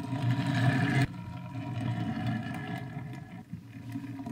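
Matchbox Peterbilt wreck truck diecast toy rolling across a hard tabletop while towing a second diecast car, its wheels and axles giving a steady low rumbling whir. The sound drops abruptly about a second in, then goes on more weakly and fades near the end as the toy slows.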